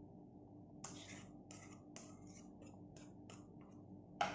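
Cooked rice being scraped out of a small ceramic bowl into a larger one: a run of faint light taps and scrapes of the utensil on the bowl, then a sharper knock near the end.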